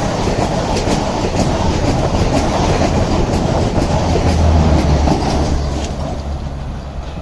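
Strizh high-speed passenger train passing close by at speed: a loud, steady rush of wheels and air with a regular clicking of the wheels over the rails, about two clicks a second. The sound eases off near the end.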